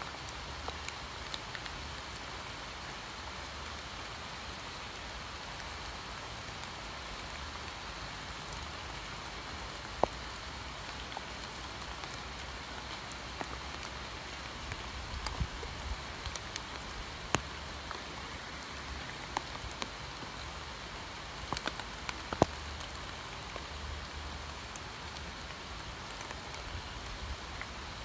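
Steady rain falling, an even hiss with scattered louder single drops ticking close by, most of them in the second half.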